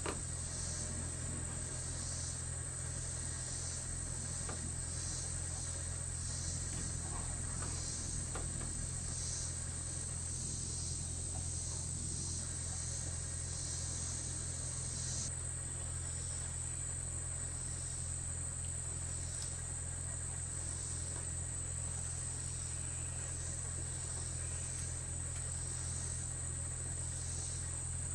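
Chorus of insects: a steady high-pitched drone with a rhythmic pulsing chirp under it, part of which cuts off about halfway through. A steady low hum runs underneath.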